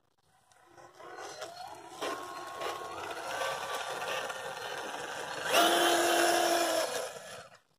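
Whine of an RC scale crawler's Fusion 1800kv brushless motor and pinion-and-spur gearing as the truck drives off. It rises in pitch about a second in, holds, then gets louder with a steadier tone about five and a half seconds in, and dies away near the end.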